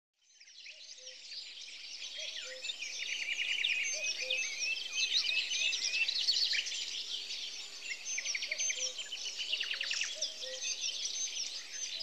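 Dense chorus of many songbirds chirping, trilling and whistling all at once, fading in at the start, with a few low call notes repeating now and then beneath it.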